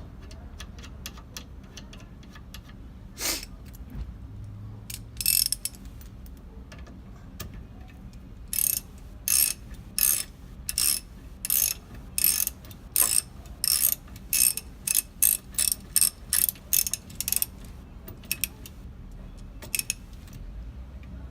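Ratchet wrench with a 14 mm socket clicking as it is swung back and forth, tightening the bolt of a car's rear brake caliper. A few scattered clicks come first, then about nine seconds of steady back-and-forth strokes at roughly two a second.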